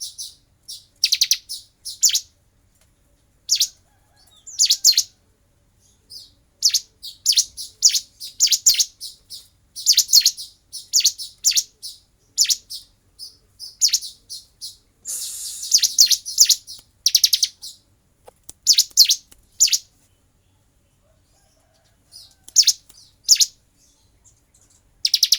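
Prinia (prenjak jali) calling: short, high-pitched, rapid chattering bursts, mostly in quick pairs or threes, repeated again and again, with a pause of a couple of seconds near the end.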